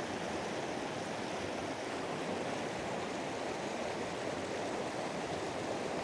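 Stream water running in a steady, even rush.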